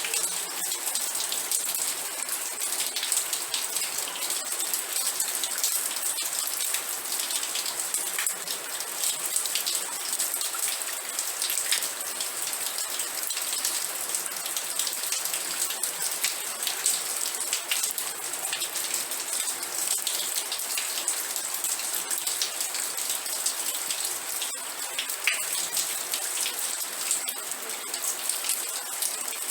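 Steady rain falling, with many separate drops ticking on a surface through an even hiss.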